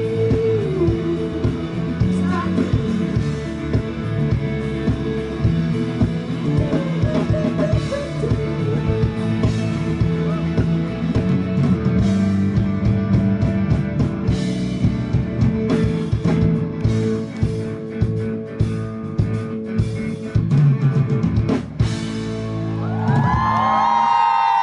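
Live rock band playing the instrumental ending of a song: drum kit hitting busily under electric guitars and bass, with the band stopping near the end.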